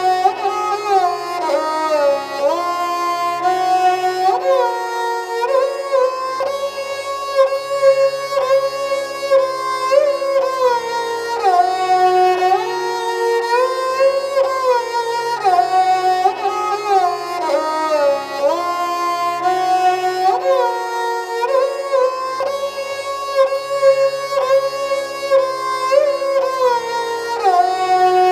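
Lehra in slow (vilambit) teentaal: a sustained melody with sliding notes over a low accompaniment, the same phrase repeating about every six seconds as a loop for keeping time.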